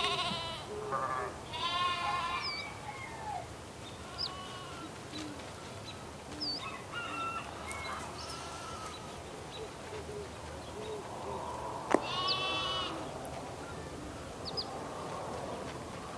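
Sheep bleating several times, loudest near the start and again about twelve seconds in, with small birds chirping briefly in between.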